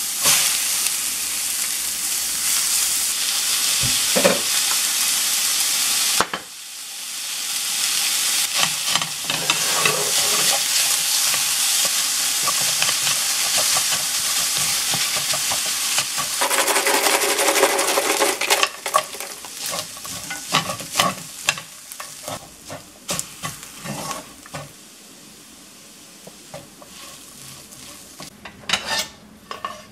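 Chopped cabbage stir-frying in a stainless steel frying pan: a loud sizzle with a wooden spatula stirring and scraping the pan. The sizzle drops suddenly about six seconds in and builds back up. In the last third it fades, leaving mostly separate spatula scrapes on the steel.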